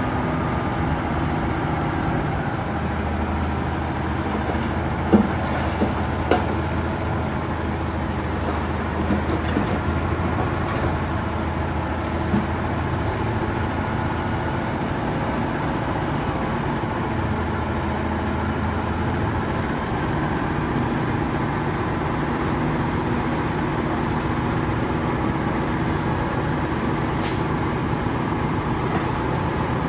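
Heavy diesel engine of earthmoving machinery running steadily, its low hum swelling for several seconds at a time, with a few sharp knocks in the first half.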